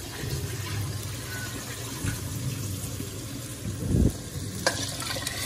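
Water running from a kitchen tap to fill a vessel, with a dull thump about four seconds in.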